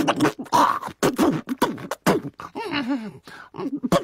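Cartoon penguin character's voice babbling and sputtering in made-up gibberish, choppy mouth noises broken by short sharp clicks.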